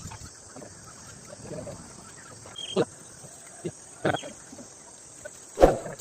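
A few scattered knocks and clinks, four in about three seconds, with the loudest near the end, over a steady high hiss.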